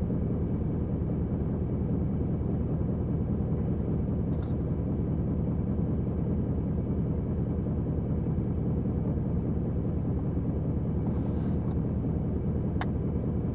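Vehicle engine running with a steady low rumble, with one sharp click near the end.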